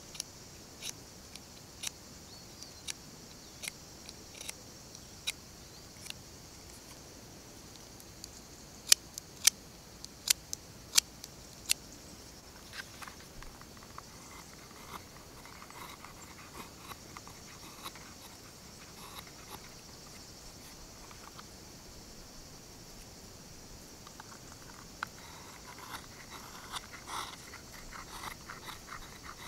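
Knife carving a small wooden fork: sharp clicking cuts about once a second, a few louder snaps around the middle, then softer, quicker scraping shaves along the handle that grow busier near the end. A steady high-pitched hiss runs underneath.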